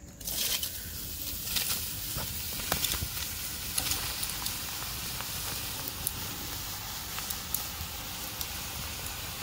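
Shredded bottle gourd dropping by hand into a hot steel wok over a wood fire, sizzling steadily with scattered sharp crackles and pattering.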